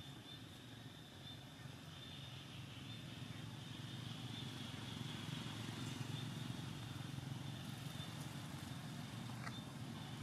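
Faint outdoor ambience: a steady low rumble like distant traffic, growing slightly louder toward the middle, with a steady high-pitched hum above it.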